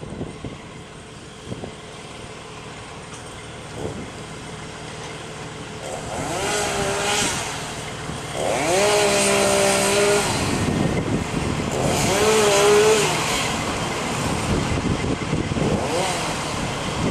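Chainsaw cutting a fallen tree, revved in three long bursts and one short one near the end. Each rises in pitch as the saw speeds up, holds, and falls away as it slows.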